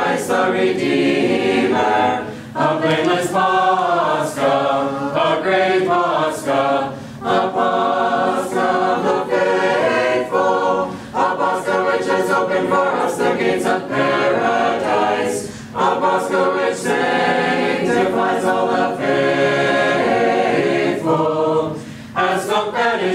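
Church choir singing an Orthodox Paschal hymn a cappella, in phrases of a few seconds with short breaks between them.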